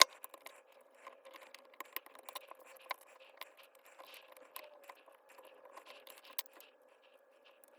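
Irregular small clicks, taps and scrapes of hands handling small parts at a workbench, with a sharp click at the start and another about six and a half seconds in, over a faint steady hum.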